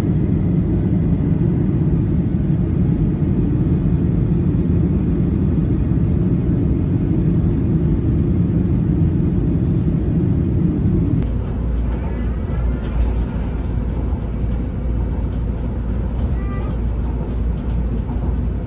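Steady, loud rumble of an airliner cabin. About eleven seconds in, the mid-range rumble drops away and leaves a steady low hum.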